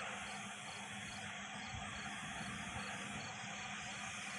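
Night chorus of crickets and other insects: a steady high trill pulsing several times a second, with a higher, shriller layer swelling and fading about every second and a half.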